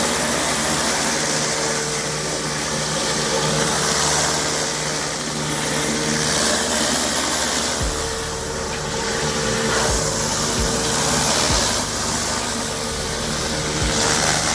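Pressure washer's gas engine running steadily under the hiss of high-pressure water spraying, with a few low thumps in the second half.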